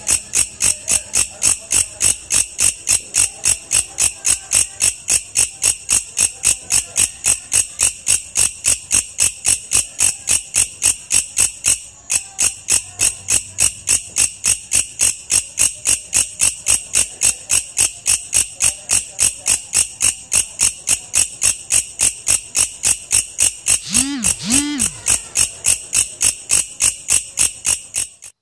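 Insect chirping in a steady, loud train of rapid pulses, about three a second, with a brief break about twelve seconds in, recorded as a master sound for training songbirds.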